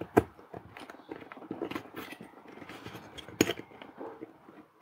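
Small clicks and scrapes of a soldered LED shield circuit board being handled and worked on and off an Arduino Uno, its pin headers rubbing and catching in the header sockets. Two sharper clicks stand out, just after the start and about three and a half seconds in.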